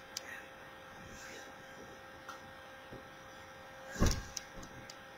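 Steady electrical hum with a few faint clicks and rustles of someone moving about, and one thump about four seconds in.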